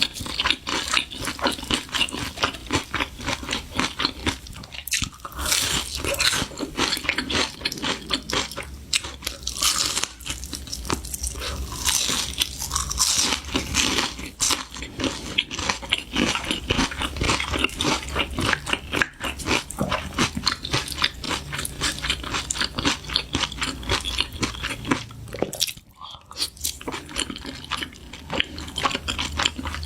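A person biting and chewing crunchy food close to the microphone: a rapid, continuous run of crisp crunches, with a brief pause about 26 seconds in.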